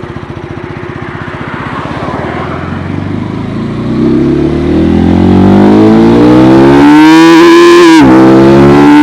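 KTM Gen 3 Duke single-cylinder engine through its stock exhaust, accelerating from low revs: the pitch climbs steadily and grows loud, dips briefly near the end as it shifts up a gear, then climbs again.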